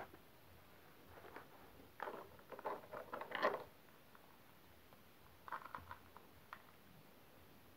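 Small plastic toys clicking and rattling as they are handled: a cluster of clicks about two seconds in, loudest near the middle, then a shorter cluster and a single click later.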